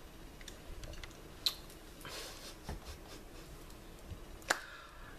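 Sipping from a ceramic mug: a soft slurp about two seconds in among a few small clicks, then a sharp knock about four and a half seconds in with a short ring.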